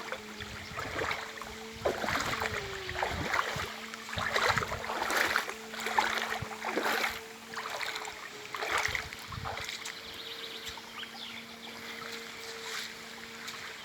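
Water splashing from a small boat on a river: irregular splashes about once a second, fading after about nine seconds, over a steady low hum.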